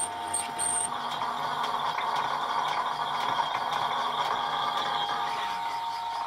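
South Bend 14½-inch lathe running with a steady gear whine while a tool turns the outside edge of a mild steel plate. From about a second in until shortly before the end, a rough cutting hiss rises over the whine.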